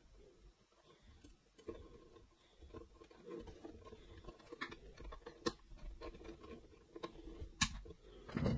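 Faint clicks and rustles of hands handling the plastic parts of a suitcase record player's deck, over a faint steady hum, with the sharpest click near the end.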